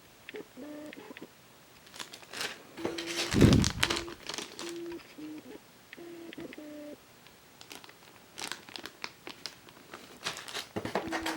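Plastic packaging crinkling and rustling as it is handled, loudest about three and a half seconds in and again near the end. A short two-pitch tone sounds on and off in the background.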